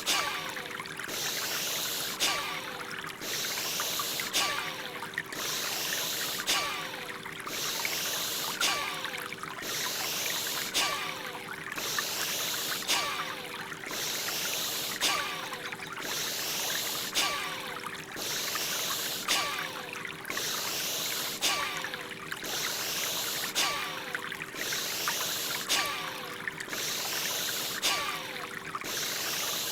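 Bhastrika (bellows) breathing: forceful breaths in and out in a steady rhythm, about one breath every two seconds, over the sound of running water and a faint steady hum.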